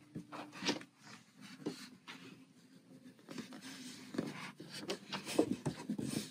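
Soft rustling and light clicks of fabric piping being handled and slid into place under a sewing machine's presser foot, over a faint steady hum.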